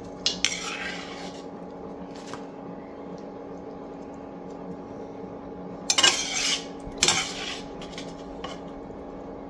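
Metal skimmer scraping and clinking against the inside of a cast-iron kazan as the last food is scooped out. There are a few short scrapes, the loudest two about six and seven seconds in, over a faint steady hum.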